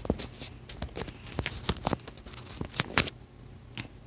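Close rustling and crackling of a dog's fur and muzzle rubbing against the phone's microphone, stopping about three seconds in, with one more faint click near the end.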